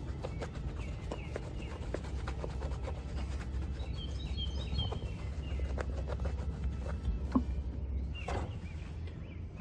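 Terry towel rubbing and wiping against a camper's outer wall around a wiring hole, over a steady low rumble, with a sharp click about three-quarters of the way through.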